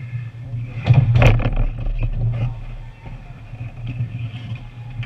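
Ice hockey play around the net: two sharp hits about a second in, followed by skate scraping, over a steady low hum of the arena.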